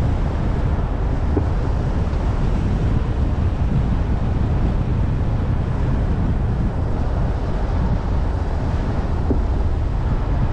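Steady low rumble of city traffic and road noise, with wind buffeting the microphone.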